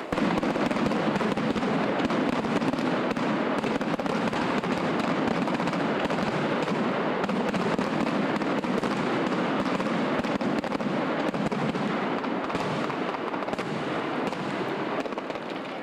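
Fireworks crackling: a dense, continuous crackle of many small pops, easing off slightly near the end.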